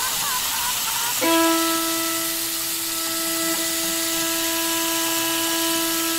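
A steady, loud hiss, with a single held musical note from the score cutting in abruptly about a second in and sustaining unchanged.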